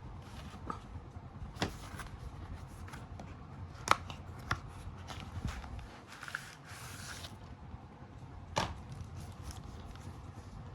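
Hands handling a phone box and its packaging: scattered sharp clicks and taps, with a brief rustle a little past the middle.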